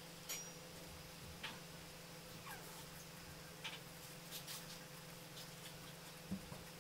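Fine-tipped ink pen on sketchbook paper: a few faint scattered ticks and small squeaks as the nib touches and drags, over a steady low hum.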